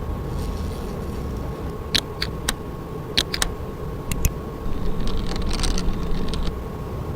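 Steady machine hum with a constant thin whine, broken by a run of sharp clicks and then a short stretch of crackling hiss about five seconds in.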